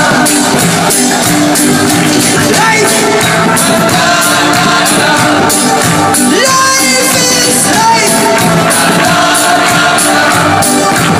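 Loud music with singing over a steady beat.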